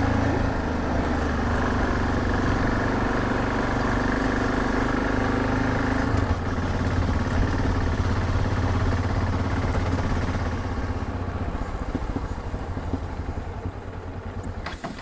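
Yamaha XT 660Z Ténéré's single-cylinder engine running steadily while ridden, getting gradually quieter over the last few seconds.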